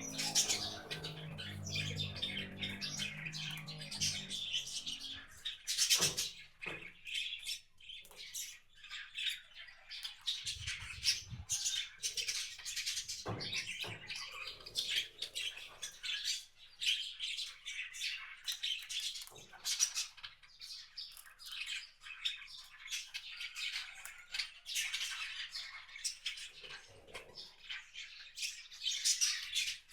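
Many small wild birds chirping and calling without pause around a feeder, with a few sharp clicks. A low hum sits under them for the first few seconds.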